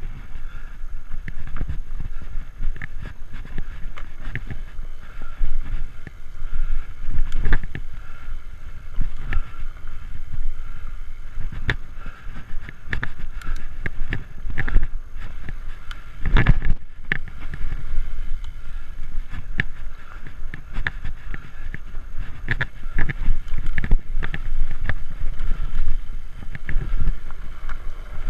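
Framed Alaskan fat-tire bike ridden along a dirt singletrack trail: steady tyre rumble with frequent knocks and rattles of the bike over bumps, and wind on the microphone. One heavy jolt comes about 16 seconds in.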